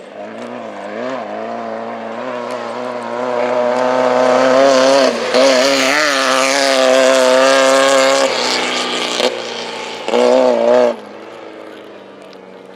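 A Class 11 off-road race car's engine comes closer and passes at speed, getting louder and then fading. The engine note dips briefly twice as the throttle comes off, and has a short second burst of power near the end.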